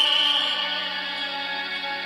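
A tenor, singing in operatic style, holds a long note over sustained orchestral accompaniment. The voice fades about half a second in, leaving the accompaniment playing on steadily.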